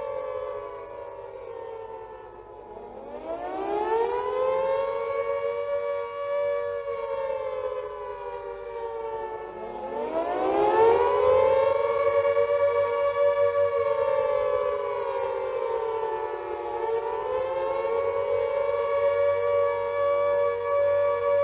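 British WWII Carter air raid siren ('Moaning Minnie') wailing on two notes at once. Its pitch falls, sweeps up steeply from low about three seconds in and again about ten seconds in, holds high, then dips and climbs once more near the end. This rising-and-falling wail is the Attack Warning signal.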